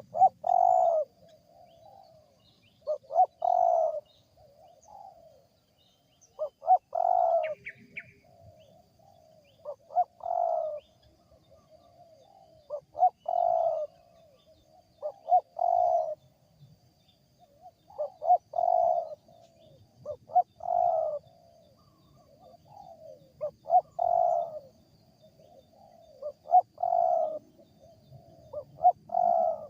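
Spotted dove cooing in a steady repeated song, each phrase a couple of short notes then a longer coo, about every two and a half seconds; an unusual-sounding wild bird's call.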